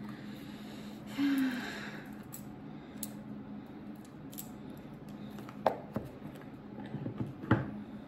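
Small sharp clicks and taps of a metal bracelet being handled and its clasp fastened, a few of them spread over the last few seconds, over a steady low hum. A brief breathy rustle comes about a second in.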